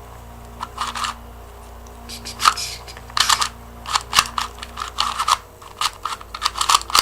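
LanLan 2x2 speed cube being turned by hand: quick plastic clicks and clacks of its layers turning, a few scattered at first, then coming fast and close together from about three seconds in.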